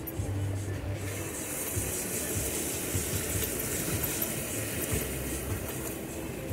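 Muddy water rushing and splashing against a Jeep Wrangler JK's wheels and body as it drives through a water crossing, with the engine running low underneath. The rushing starts about a second in and stays steady.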